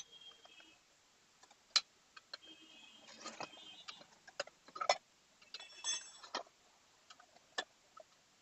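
Steel tyre levers clinking and scraping against a motorcycle wheel rim as the old tyre's bead is prised off, in scattered sharp taps with a few short metallic rings.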